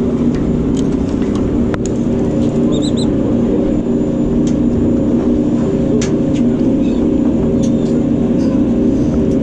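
Boat engine running steadily, with scattered light clicks and ticks and a brief high squeak about three seconds in.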